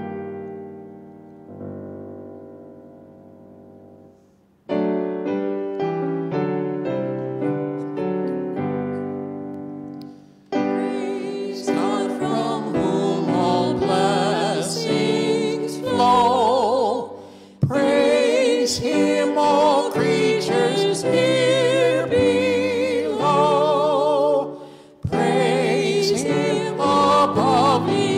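A keyboard plays slow hymn chords that fade away about four seconds in and then start again. About ten seconds in, voices join, singing the hymn over the keyboard, with short breaks between lines.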